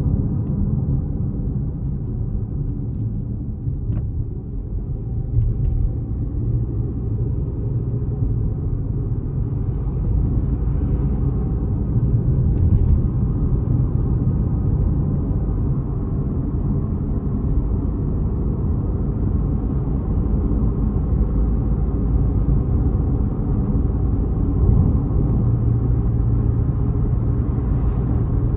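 Steady low road rumble of a car driving.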